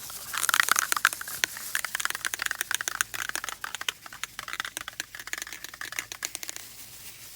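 A glove being pulled off and put back on, with a fast, irregular crinkling and rustling that dies away about a second before the end.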